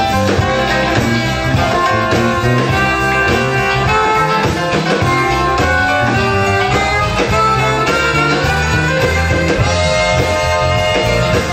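A large live band playing continuously, with a horn section of saxophones and trumpets, electric guitar, keyboards and drums.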